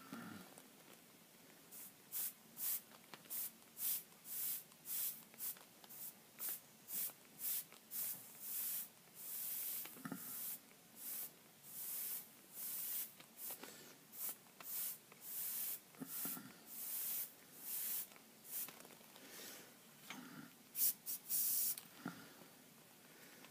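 Airbrush spraying paint in short hissing bursts as the trigger is pressed and released over and over, about one or two bursts a second, some held a little longer. The bursts start about two seconds in and stop shortly before the end.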